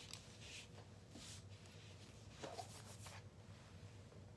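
Near silence, with a few faint rustles and light ticks of hands handling brushes and paint supplies on the worktable.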